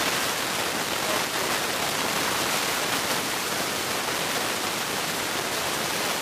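A steady, even hiss with no distinct sounds standing out of it.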